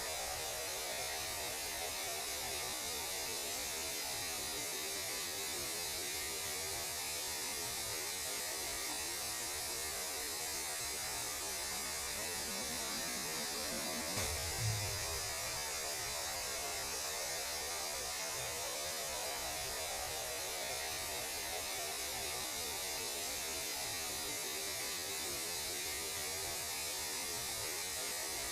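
Steady static-like hiss over a low hum, the kind of radio noise presented as the sound of space. There is one brief low thump a little before halfway.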